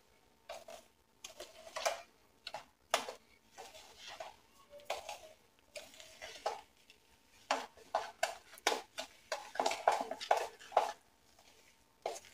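Spoon stirring semolina and curd in a plastic bowl: irregular soft knocks and scrapes against the bowl, coming in quick clusters.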